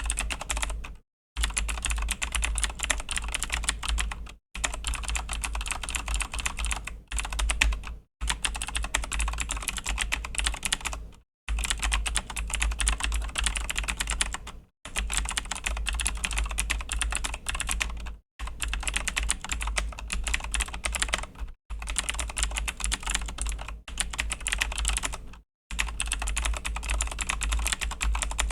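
Fast continuous typing on a Razer BlackWidow V3 mechanical keyboard with Razer Green clicky switches: a dense run of key clicks, broken by short pauses every few seconds.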